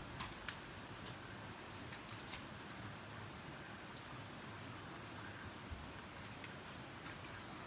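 Light rain: a faint steady hiss with a few scattered light ticks.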